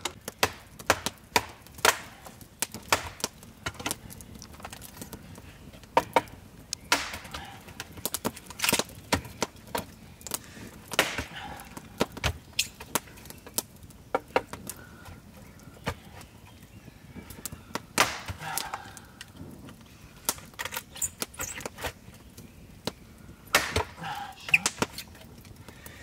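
Machete chopping and splitting wood on a log: a string of sharp, irregular strikes in runs, with short pauses between them.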